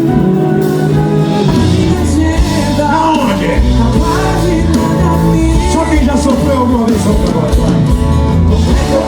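Live sertanejo band music with a lead vocal singing over a steady bass line.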